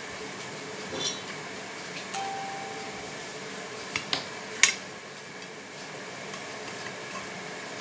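Knife blade clinking against a plate while a slice of sponge cake is cut: a few sharp clinks, the loudest about halfway through, over a steady background hum.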